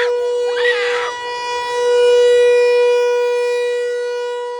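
Outdoor warning siren sounding its noon test: one steady wailing pitch that swells to its loudest about two seconds in, then slowly fades.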